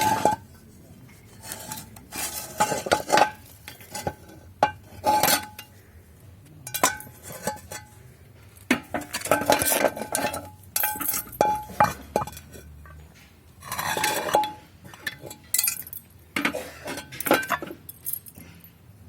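Pieces of metal clanking and clinking together as they are handled and moved about, in irregular knocks, several leaving a short metallic ring.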